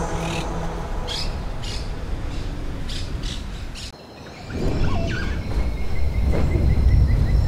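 Birds chirping and squawking, short high calls at first, then longer calls. A low rumble swells in about halfway through.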